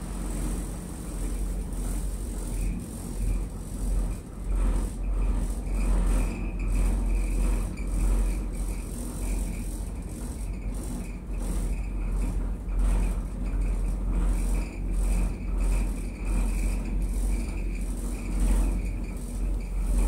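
Inside a funitel gondola cabin running along its haul ropes: a steady low rumble with the cabin rattling irregularly, and a faint steady high whine from about two seconds in.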